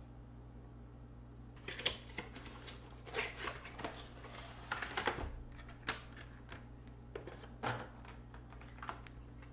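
Cardboard box and clear plastic blister tray being handled and opened: a string of irregular scrapes, taps and crinkles starting about two seconds in.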